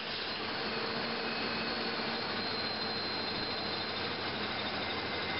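Car engines idling steadily under an open hood: a previously discharged car running on a jump start from a booster vehicle, with the cables still connected.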